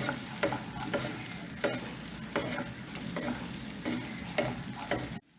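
Tomato sauce sizzling in a pan on the heat while being stirred, with short scraping strokes of the stirring utensil against the pan about twice a second. The sound cuts off abruptly just before the end.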